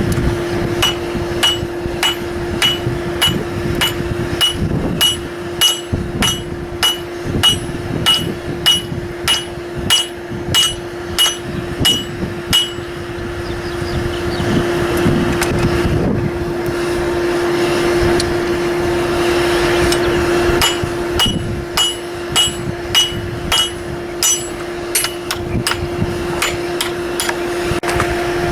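Blacksmith's hammer striking steel on an anvil in a steady rhythm of about three ringing blows every two seconds. The blows stop for several seconds midway, leaving a rushing noise, and resume near the end, over a steady hum.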